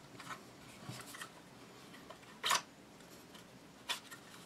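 Faint clicks and scraping of a Tavor X95 rifle's barrel assembly being worked out of its chassis, with a louder short scrape about two and a half seconds in and a smaller click near the end.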